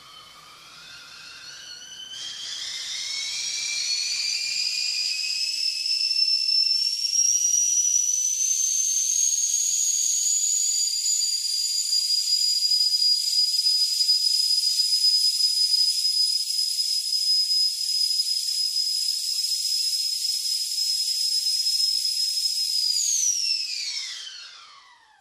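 Stovetop kettle whistling at the boil: the whistle starts faint and rises in pitch as it grows louder over the first several seconds, then holds a steady, piercing high note, and near the end drops sharply in pitch and dies away.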